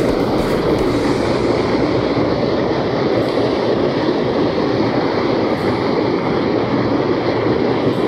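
A small waterfall in a mountain stream, whitewater pouring into a plunge pool close by, rushing loudly and steadily as an even, unbroken noise.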